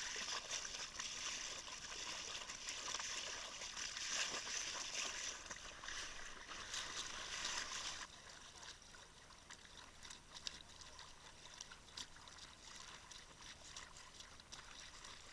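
Water rushing and splashing along a sailing dinghy's hull as it sails, a steady hiss with small splashes; it drops suddenly to a quieter wash about eight seconds in.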